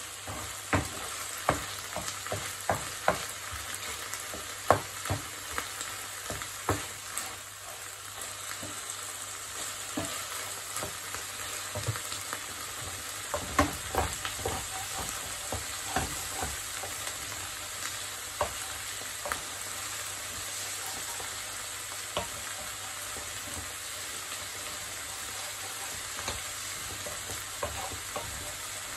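Rice sizzling in oil in a nonstick frying pan as a wooden spoon stirs it: a steady frying hiss with irregular clicks and knocks of the spoon against the pan, most frequent in the first few seconds and again around halfway.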